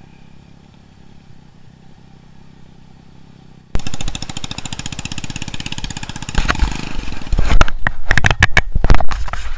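A motorcycle engine running quietly and evenly under way, then, after a sudden cut about four seconds in, a motorcycle engine running loud and fast-pulsing as the bike is helped up a steep, slippery dirt trail. Heavy irregular knocks and crackles come over it in the last few seconds.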